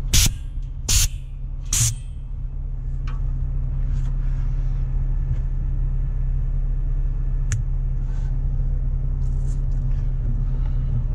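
Heavy truck's diesel engine idling steadily, with three short, sharp hisses in the first two seconds.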